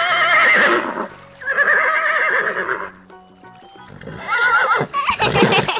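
Horse neighing three times, each whinny with a quivering, wavering pitch, over soft background music.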